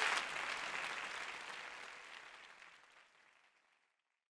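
Audience applauding, dying away steadily until it is gone near the end.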